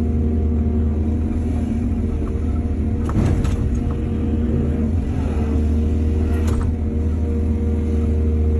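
Excavator's diesel engine running steadily, with short metallic clanks about three seconds in and again near six and a half seconds.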